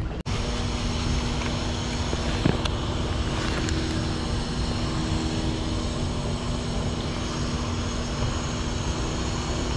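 A steady mechanical drone holding two constant tones, over an even rush of noise, with one short click about two and a half seconds in.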